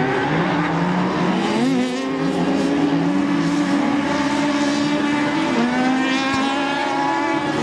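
Several autocross buggy engines racing on a dirt track, rising in pitch and dropping back with gear changes. One engine holds a steady note for a few seconds before dropping, and a higher engine note climbs near the end.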